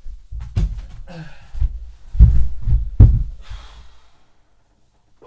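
Scuffle between two people: a series of dull thumps of bodies against the floor and a sofa, the loudest two about two and three seconds in, mixed with gasping breaths, then dying away.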